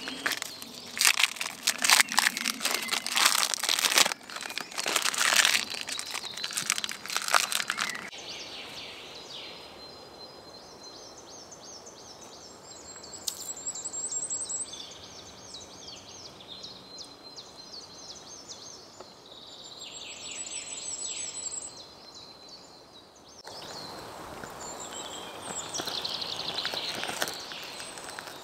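Crinkling, rustling and clicking of outdoor gear being handled for several seconds. Then a quiet forest stretch with a songbird repeating a short descending song phrase twice, followed by more rustling and crackles with birds calling.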